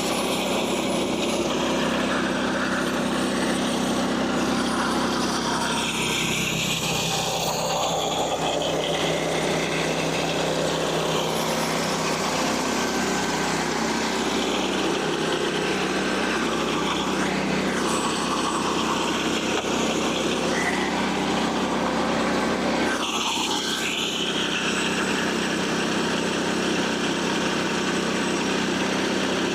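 Frontier OS27 portable band sawmill's small gasoline engine running steadily under load as the band blade saws through red oak, its sound shifting a few times during the cut.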